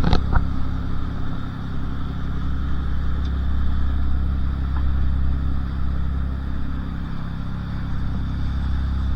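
Cruising powerboat's engine running steadily underway, a low even drone with a light hiss of water and air over it, and a brief knock right at the start.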